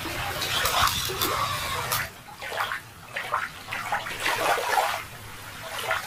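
Shallow water splashing and dripping as a plastic toy is dipped in and lifted out. It is louder for the first couple of seconds, then quieter with scattered drips and small splashes.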